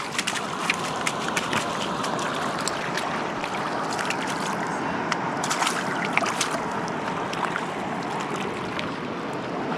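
Shallow, rocky river running: a steady rush of water over stones, with small scattered splashes and trickles.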